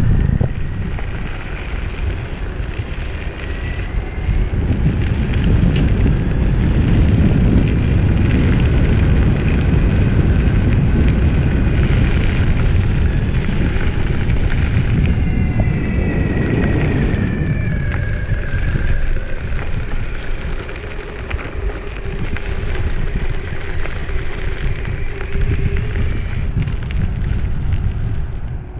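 All-terrain wheels of an Evolve electric longboard rolling over a gravel road, with wind buffeting the microphone. The board's motors give a faint whine that drops in pitch about halfway through.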